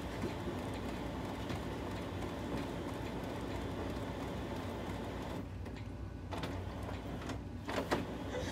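Brother MFC laser multifunction printer running with a steady whir, with a few light clicks and one sharper thump near the end.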